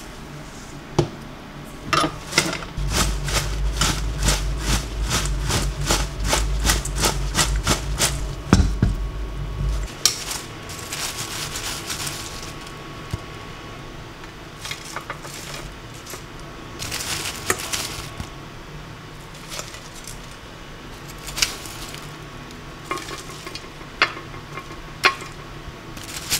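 Kitchen handling of cooked French fries: a fast, even run of rattling clicks for several seconds, as from fries tossed in a metal colander. Scattered clinks and taps follow as tongs serve food onto ceramic plates.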